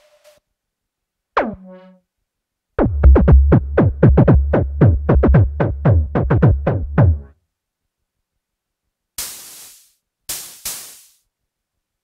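Waldorf Kyra virtual-analog synthesizer playing percussive, drum-machine-like patches. First comes a single falling zap. Then a fast run of about four or five pitch-dropping hits a second over a heavy bass, stopping abruptly, and near the end three short noisy snare-like hits.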